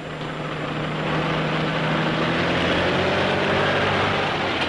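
Heavy truck engines running in a steady low drone, growing louder over the first second and then holding.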